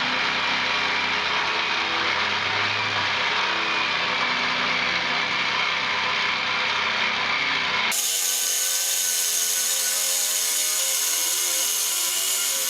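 Porter-Cable jigsaw with a fine-tooth metal blade running steadily as it cuts through the steel shell of a hot water heater tank. The sound changes abruptly about eight seconds in, losing its low end.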